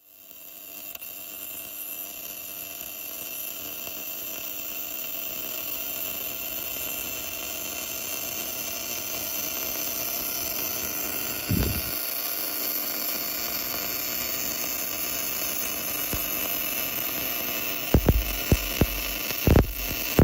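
Portable line-boring and bore-welding machine working in a worn axle bore: a steady mechanical running noise with high-pitched whine, slowly getting louder. A single knock about halfway, then a series of loud knocks near the end.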